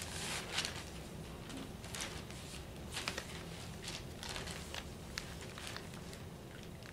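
Faint rustling of a newspaper being handled and its pages shifted, with scattered light clicks and taps.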